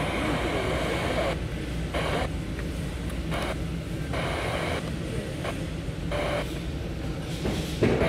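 FM static hiss from a Timex T618T clock radio's speaker as its tuner steps between stations. The hiss changes abruptly with each step.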